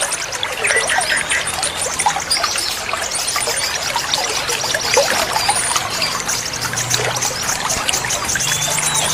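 Trickling, splashing water with many small birds chirping and twittering over it, including fast, high-pitched trills.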